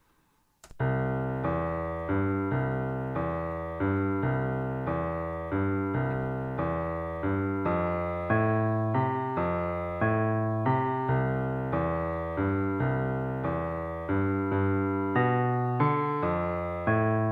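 A programmed bass line played back on a piano-sounding virtual instrument in BandLab. It is single low notes on a steady beat at 140 bpm, stepping through the notes of the song's chords, and it starts just under a second in.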